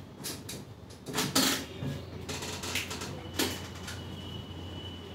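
A few sharp knocks and clatters, the loudest about a second and a half in. A steady low hum and a faint high steady whine come in after two to three seconds.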